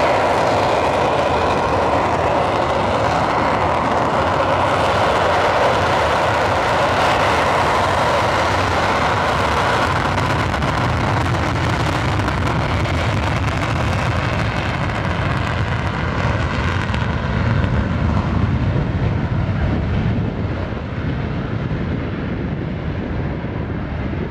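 A Panavia Tornado's twin RB199 afterburning turbofans running at full power with afterburners lit as the jet accelerates on its takeoff roll. The loud, steady jet noise loses its hiss from about two-thirds through and turns to a deep rumble as the aircraft draws away.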